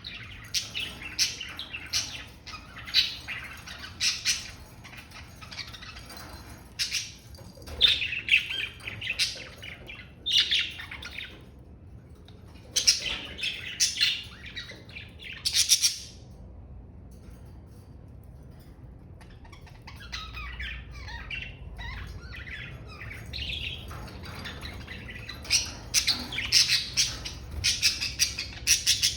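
Budgerigars chirping and chattering in quick bursts of short, high chirps and warbles, with a lull in the middle before the chatter picks up again.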